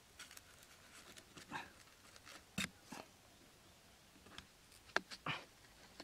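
Knife blade scraping and cutting corrugated cardboard in short, separate strokes, with a few small clicks; the sharpest click comes about five seconds in.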